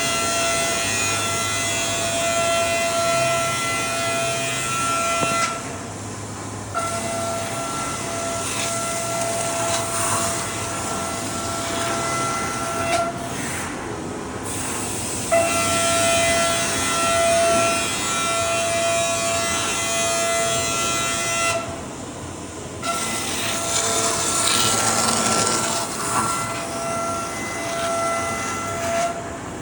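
Chiron CNC machining center milling aluminium: the spindle and cutter give a steady high whine over a hiss of cutting, which cuts out briefly three times as the tool leaves the cut between passes.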